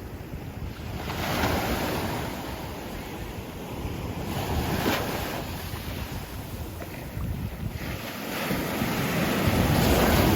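Sea waves breaking and washing up a beach, surging three times, with wind buffeting the microphone.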